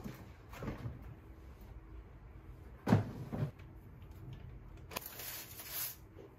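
Fruit set down into a plastic colander basket on a kitchen counter. A loud, dull thump comes about three seconds in and a softer one just after. A brief rustling hiss follows about five seconds in.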